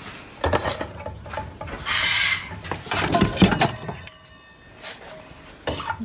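Stainless steel feeding bowls clattering and clinking against each other as they are handled. There is a short rustle about two seconds in.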